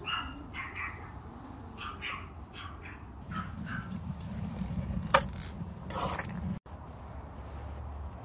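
A dog whining in short, high-pitched whimpers, several in a row over the first few seconds, with a sharp click about five seconds in.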